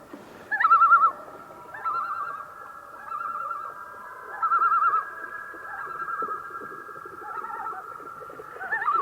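Common loon tremolo calls: a run of short, rapidly quavering 'laughing' bursts, one after another. The loudest comes just under a second in, with fainter overlapping ones between.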